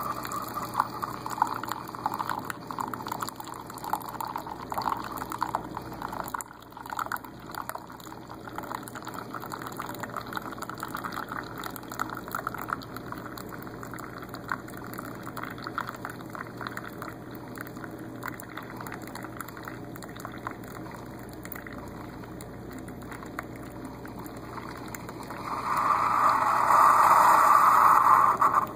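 Keurig single-cup coffee maker brewing, its pump running and a thin stream of coffee pouring into a ceramic mug. The sound grows much louder for the last few seconds as the brew cycle finishes.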